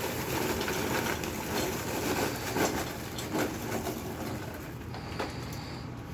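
Popped popcorn poured from a foil stovetop popcorn pan into a bowl: a rustle and patter of kernels with scattered light clicks, busiest in the first couple of seconds.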